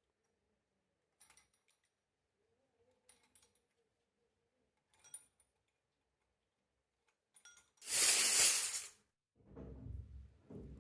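Faint clicks of small plastic toy kitchen pieces being handled, then about eight seconds in a loud rustle of toy packaging lasting about a second.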